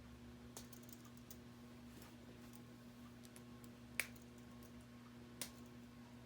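Plastic K'NEX rods and connectors clicking as they are snapped together: a few faint clicks, then two sharper snaps about four and five and a half seconds in, over a faint steady hum.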